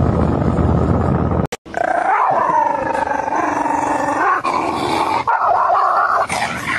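A steady, noisy rumble cuts off about a second and a half in. Then a dog vocalizes in long, wavering howl-like sounds that bend up and down in pitch.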